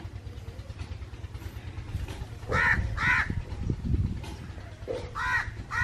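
Four short, harsh animal calls in two pairs, one pair about two and a half seconds in and another near the end, over a steady low rumble.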